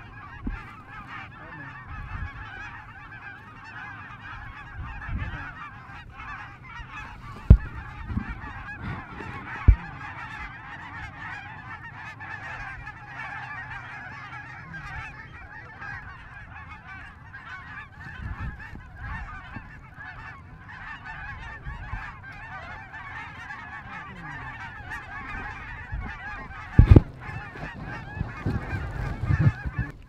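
A large flock of geese honking and calling in a dense, continuous chorus. A few sharp low thumps cut in, the loudest near the end.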